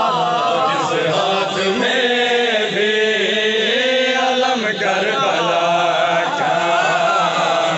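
A man chanting a devotional recitation into a handheld microphone: one loud, unbroken voice with long, held, gliding notes.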